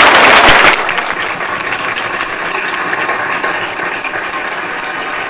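Audience applauding, opening with a loud burst of noise in the first second and then slowly dying away.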